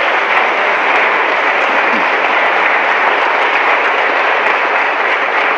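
Large audience in an auditorium applauding steadily, a dense continuous clapping.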